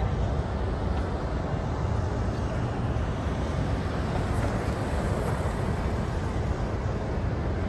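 Steady outdoor street noise: traffic on a busy road, a constant heavy low rumble.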